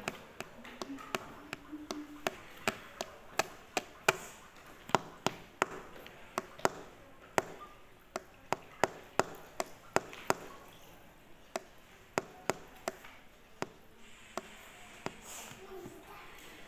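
A long series of sharp taps, irregular at about one or two a second, over faint background voices.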